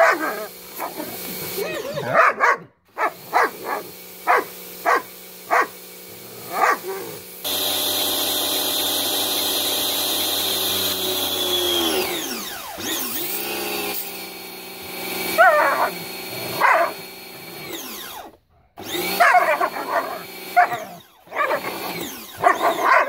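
A pressure washer's motor and pump hum steadily while a German Shepherd barks and snaps at the spray. A run of about six short, sharp barks comes a few seconds in, then the machine's sound drops off about halfway through, and excited yelping barks follow near the end.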